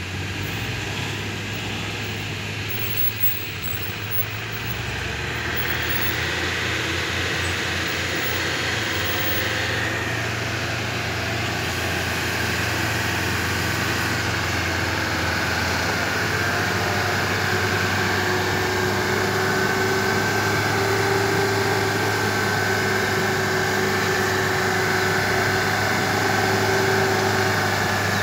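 Land Rover Defender 110's engine running at low revs as it crawls through deep mud, growing louder about five seconds in as it comes closer, with a steady whine above the engine noise in the second half.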